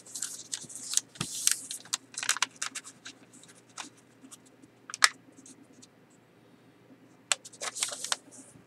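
A sheet of paper being folded and creased by hand: short bursts of rustling and sliding paper with quiet gaps between, and one sharp crackle about five seconds in.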